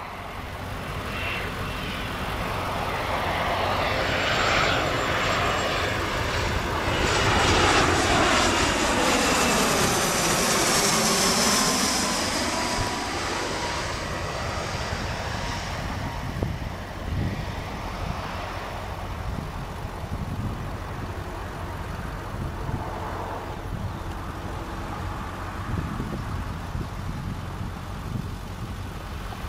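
Jet airliner passing low overhead. Its engine noise builds, is loudest about eight to twelve seconds in, with a whooshing sweep in pitch, then fades to a steady rumble.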